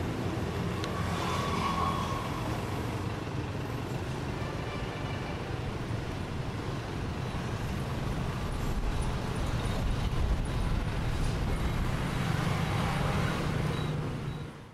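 Passing road traffic: vehicle engines in a steady low rumble that grows louder for a few seconds past the middle, then fades out at the end.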